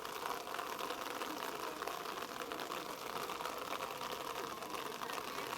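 Indistinct distant voices of players and onlookers calling across a rugby pitch, over a steady outdoor hiss.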